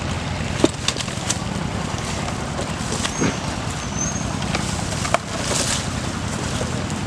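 Rustling leaves and a few sharp snaps and knocks as a person pushes through dense riverbank brush, over a steady low hum.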